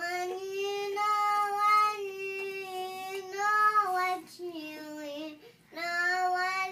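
A child singing slow, long-held notes, stepping up and down in pitch between phrases, with a brief break about five and a half seconds in before another held note.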